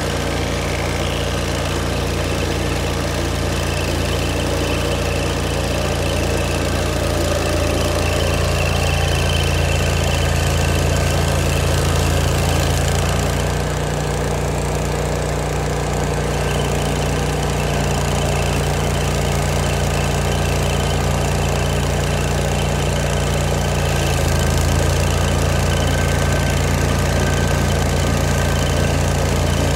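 Engine of an old Vermeer stump grinder running steadily, its note shifting slightly about halfway through and again near the end.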